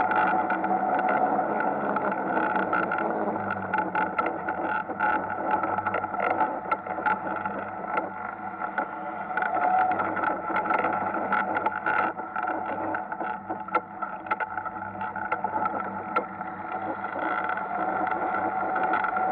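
Ice karts driving on an ice track: a steady motor hum that holds its pitch, with frequent short clicks and rattles over it.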